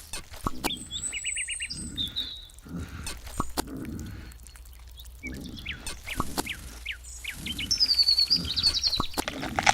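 Small birds chirping and trilling, with scattered sharp clicks and knocks throughout.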